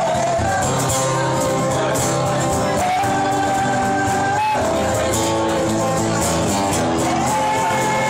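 Live band playing a song: strummed acoustic guitars and a drum kit under male voices singing through microphones. The singers hold long notes, one in the middle and another near the end.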